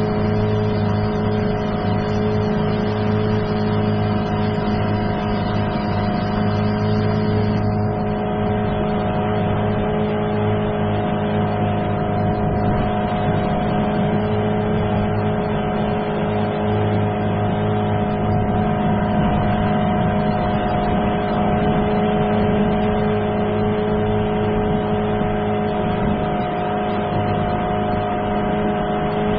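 Outboard motor on a MacGregor 26S sailboat running at a steady throttle, its hum holding one even pitch.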